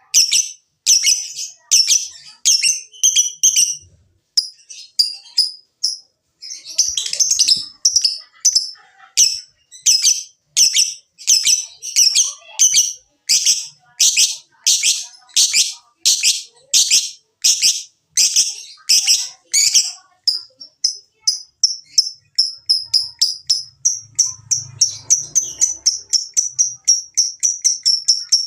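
Lovebird calling in loud, shrill chirps about two a second, then from about two-thirds of the way in breaking into a faster, even run of short notes: the rapid chattering trill lovebird keepers call ngekek.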